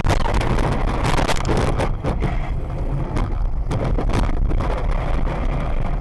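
A vehicle swerving onto the rough roadside at speed: loud rumbling road and wind noise on the microphone, broken by many irregular knocks and jolts.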